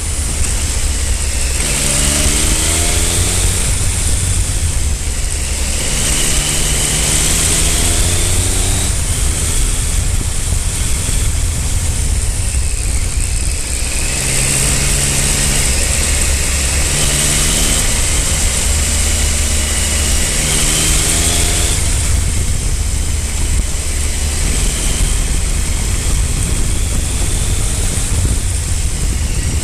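Triumph Speed Triple 955i's three-cylinder engine on the move, its revs climbing again and again and dropping back between gear changes, over constant wind rush and road rumble.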